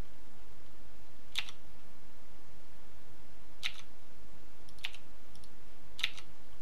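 A computer keyboard clicking: four separate key presses spaced one to two seconds apart, over a steady low hum.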